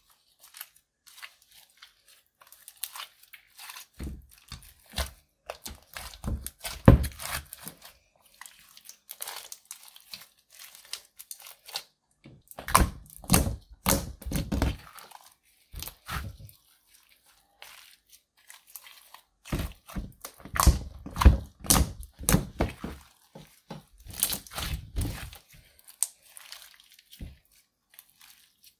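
Clear slime mixed with black eyeshadow being squeezed, pressed and stretched by hand, giving a run of sticky clicks and pops. It comes in three louder stretches with softer handling noise in between.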